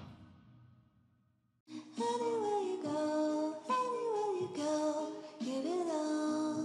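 Background music fades out, then after about a second of near silence starts again with a sung melody line that slides up and down in pitch.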